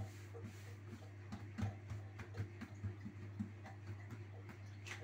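Fingertips and palms pressing and patting pizza dough flat on a floured countertop: irregular soft pats, roughly two a second, over a steady low hum.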